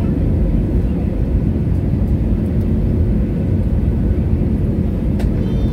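Airliner cabin noise on final approach: a steady low rumble of engines and rushing air, with a faint steady hum. A brief click sounds near the end.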